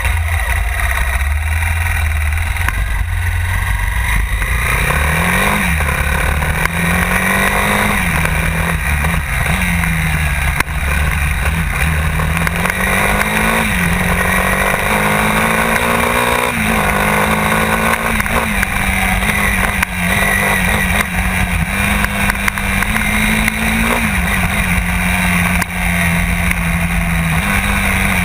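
Honda XR 250 Tornado's air-cooled single-cylinder four-stroke engine under way, pitch climbing and dropping again and again as it is accelerated through the gears, with heavy low rumble throughout.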